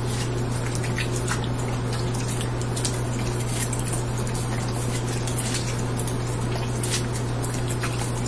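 Boxer dog biting and chewing a wedge of watermelon: wet, irregular crunching and smacking clicks over a steady low hum.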